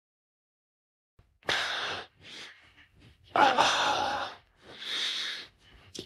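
An AI-generated girl's voice making hiccup and gasp sounds with breathy exhales. It starts after about a second and a half of silence and comes as a handful of separate sounds, the longest near the middle.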